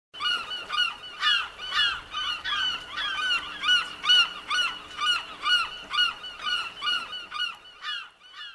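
Seagulls calling over and over, about two calls a second, trailing off near the end.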